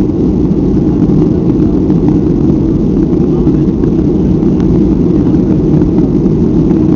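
Steady, deep cabin noise of a Boeing 737-500 in its initial climb after takeoff: its CFM56-3 jet engines running at high power, with airflow over the fuselage, heard from inside the cabin.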